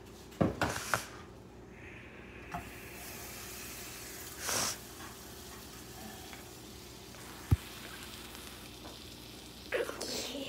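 Food sizzling as it fries in a small pan with butter, a steady hiss. A few quick knocks come in the first second, and there is a single sharp tap about seven and a half seconds in.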